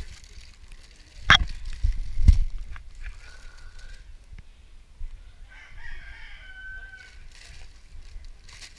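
Plastic bag rustling and two sharp thumps as fish are handled into a plastic bag; the thumps are the loudest sounds, in the first few seconds. About two-thirds of the way through, a rooster crows once, more faintly.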